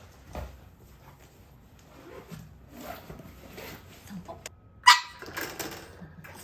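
Boston terrier making a few short, soft vocal sounds, then one sharp bark about five seconds in with a little more vocalising after it: a demand to be let out.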